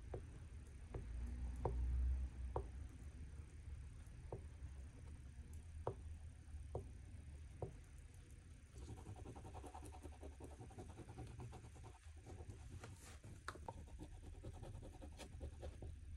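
Oil pastel scratching and rubbing on a textured canvas, faint, with a light tick roughly once a second as strokes begin, then a stretch of continuous scraping from about nine seconds in.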